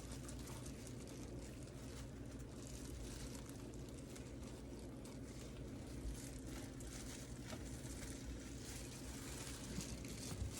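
Buttered Texas toast sizzling in a hot pan: a steady, faint hiss with fine crackles running through it.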